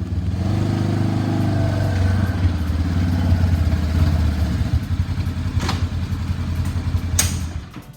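A motor vehicle engine running loudly and steadily, fading out near the end. There are two sharp clicks, one late and one near the end.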